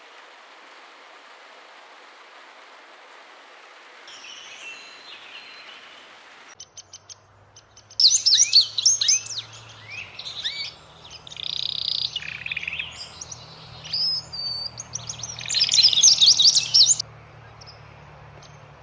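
Wild birds chirping and singing in quick, sweeping phrases, loudest through the middle and later part. Before that there is a steady outdoor hiss with only faint calls, and a low hum comes in about a third of the way through.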